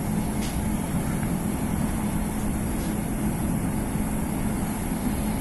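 Steady cabin noise inside a British Rail Class 150 diesel multiple unit on the move: the low drone of its underfloor diesel engine under the running rumble of wheels on the track.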